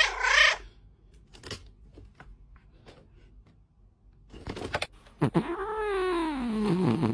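Domestic cats calling: a short loud yowl right at the start, a few sharp clicks, then from about five seconds in a long drawn-out meow falling in pitch, with another short call near the end.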